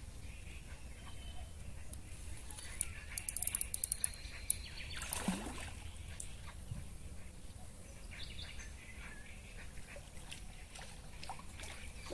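A fishing reel clicking in a quick run of sharp ticks for about a second and a half, starting around three seconds in, while a hooked fish is played on a bent feeder rod. One falling swish follows at about five seconds, over faint bird calls.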